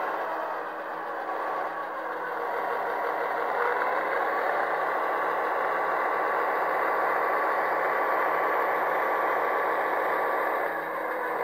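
Model locomotive sound decoder (Soundtraxx Tsunami 2) playing an EMD diesel engine through the small cube speakers of a moving HO-scale MP15AC switcher. The engine sound rises in pitch and gets louder about three and a half seconds in, then holds steady, easing slightly near the end.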